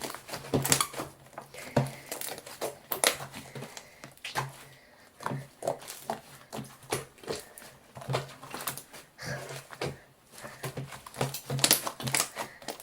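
Homemade slime, with lotion just mixed in, being squeezed and kneaded by hand, making irregular sticky clicks and squelches.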